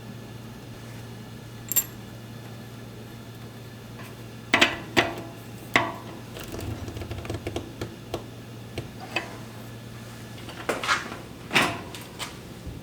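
Metal bike parts and tools clinking and knocking as they are handled during a bicycle build: about a dozen irregular sharp clinks, the loudest a couple of seconds apart near the middle and near the end, over a low steady hum.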